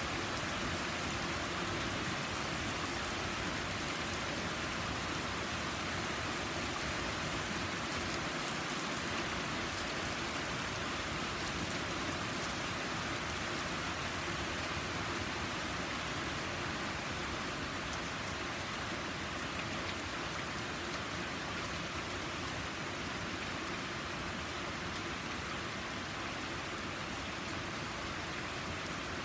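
Steady heavy rain falling on a lawn, paved path and wet porch deck: an even, unbroken hiss of rain with no let-up.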